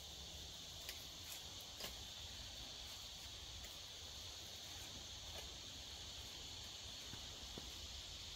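Steady high-pitched chorus of insects in the woods, a continuous even buzz, with a few faint clicks in the first two seconds.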